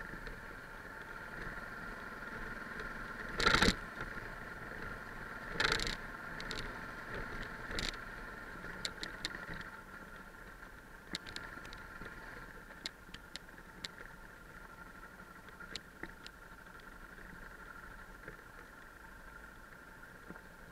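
Yamaha 660 single-cylinder trail bike running steadily along a rough gravel track, with knocks and rattles from the bike jolting over stones: two loud knocks a few seconds in, then scattered small ticks that thin out later.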